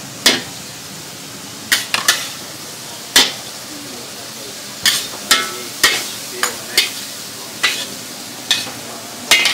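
A metal ladle clanks and scrapes against a wok at irregular intervals, about a dozen sharp strikes with a short ring, over the steady sizzle of stir-fried flat rice noodles.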